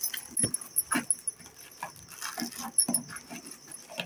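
A cardboard product box and its plastic wrapping handled on a table: a few light knocks, about half a second and a second in and again at the end, with rustling, and short whining sounds in between.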